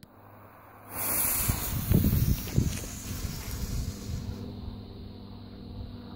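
Firecracker fuse being lit with a jet-flame lighter and hissing as it burns, loud at first and easing off after a few seconds, with a few dull thuds of handling and steps. At the very end a single sharp pop as the firecracker goes off weakly, a dud that fizzles rather than bangs.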